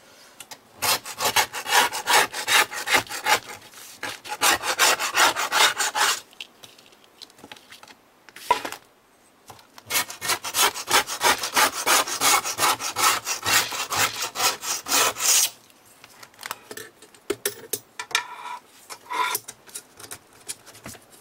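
Old foam and tape being scraped out of a knitting machine's metal sponge bar with a small blade: two long runs of rapid scraping strokes, about five seconds each, with scattered single scrapes between and after.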